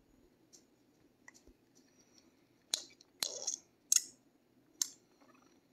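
Scattered sharp clicks and taps, about six, close to the microphone, the loudest in the middle, as an object is handled.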